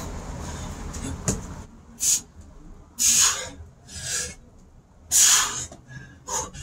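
A man's forceful exhalations, five short breaths about a second apart, as he does burpee push-ups. Before them, wind rumbles on the microphone, and there is a sharp knock about a second in.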